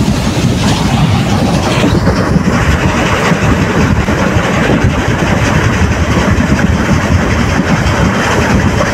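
ICF passenger coach running at speed: a steady, loud rumble of its wheels and bogies on the track, heard from the open doorway of the first coach behind the electric locomotive.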